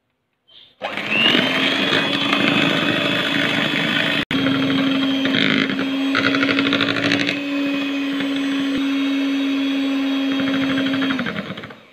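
Electric hand mixer running steadily, its beaters whipping egg whites and sugar into a foam in a bowl. It starts about a second in, cuts out for an instant a few seconds later, and stops just before the end.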